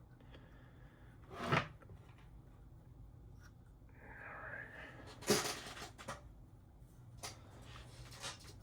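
Workbench handling noises as small tools and parts are picked up and set down: two sharp knocks, about a second and a half in and again a little past five seconds, with some brief rustling and a few lighter clicks.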